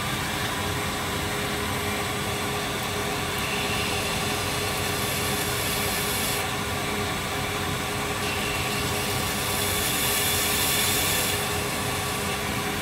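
Belt grinder running steadily on a small-wheel attachment while a Timascus (titanium) clip blank is ground by hand against the belt. A brighter grinding hiss comes in about five seconds in and again from about eight to eleven seconds, loudest near the end of that stretch.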